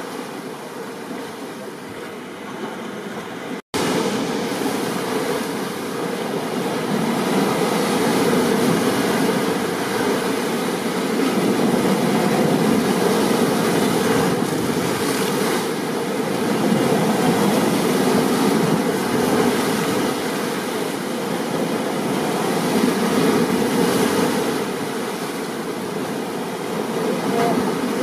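Stormy ocean surf: a steady rushing noise that swells and eases every few seconds as waves break. About four seconds in the sound drops out completely for a split second, then comes back louder.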